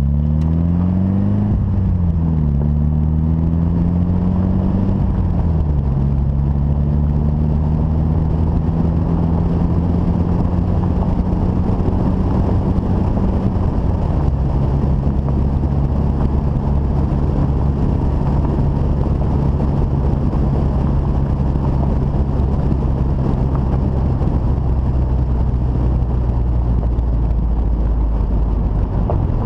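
Mitsubishi Lancer Evolution VIII's turbocharged 2.0-litre four-cylinder, fitted with a 25G turbo and running on E85, pulling up through the gears with quick upshifts in the first six seconds, then cruising steadily with another upshift about halfway through. Road and wind noise run underneath.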